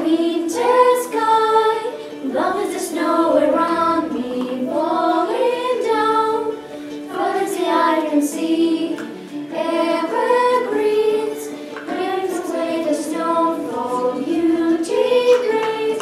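Children singing a song together, a melody of held notes moving from one to the next in phrases.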